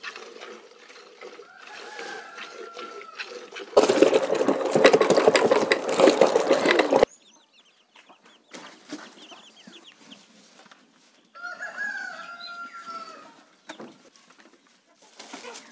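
Chickens calling, with a longer drawn-out call a little past the middle. For about three seconds in the first half, a loud stretch of rough noise drowns everything else.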